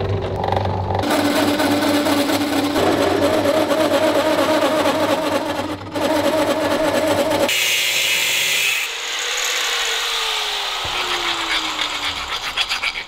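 Metal lathe running and cutting metal for a new washer: a steady motor hum with a cutting hiss. About seven and a half seconds in the cutting gives way to a short higher scrape, then the lathe's hum falls in pitch as it spins down, and near the end a hand file rasps back and forth over the washer's edge to deburr it.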